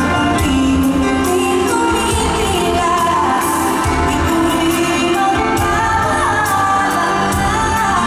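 A woman singing a pop ballad live through a PA, with band accompaniment and regular percussion strikes; she holds long notes with vibrato and slides between pitches.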